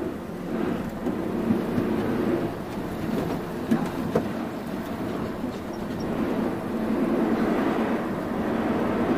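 Volvo FH12 500 truck's 12-litre straight-six diesel running on the move, heard from inside the cab as a steady rumble. A few knocks and rattles come about one and a half and four seconds in, and the engine grows louder near the end.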